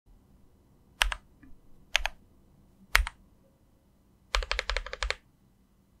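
Keys of a mechanical keyboard being pressed: three single keystrokes about a second apart, each a press and release click, then a quick run of about eight keystrokes near the end.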